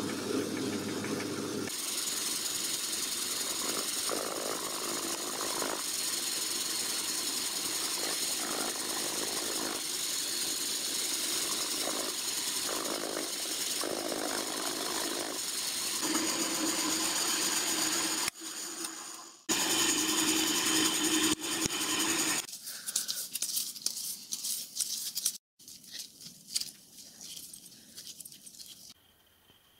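Machine tools cutting steel in a run of short edited clips: a lathe spinning a square bar in a four-jaw chuck while it is bored, then a long steady stretch of a pillar drill/mill running on the bar held in a vice. Near the end, quieter scattered clicks and scrapes from a tap being turned by hand.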